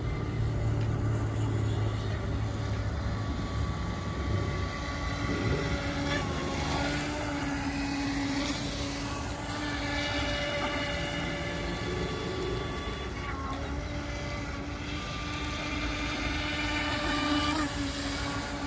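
Radio-controlled speedboat's motor whining as the boat runs on the water, its pitch shifting several times as it is throttled up and down through turns.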